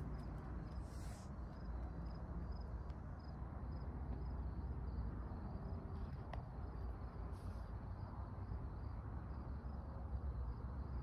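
A cricket chirping steadily, short high chirps about twice a second, over a low rumble.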